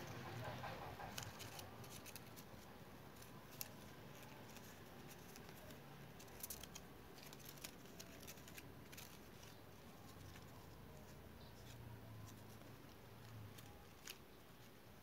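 Faint rustling and scattered light clicks of stiff paper strips being woven together by hand, with a few sharper ticks now and then.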